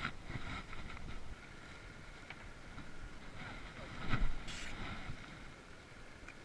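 Faint outdoor wind-and-water ambience with wind buffeting the microphone, a few light clicks, and one louder knock about four seconds in.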